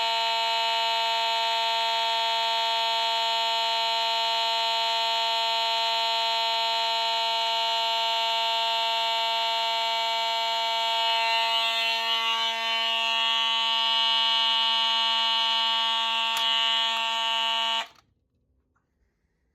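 Fire alarm notification appliance sounding a continuous, steady buzzing horn tone, cutting off abruptly about a second and a half before the end.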